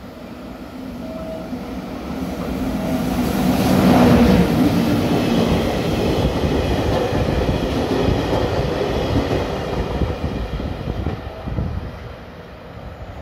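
JR Freight EF66 electric locomotive and its train of empty flat wagons passing through a station. The sound swells as the locomotive approaches and passes, with a steady hum at its loudest about four seconds in, then the wagons' rumble and wheel clatter run on before fading near the end.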